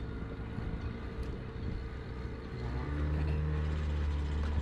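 A boat engine running steadily, becoming clearly louder about three seconds in as it is throttled up.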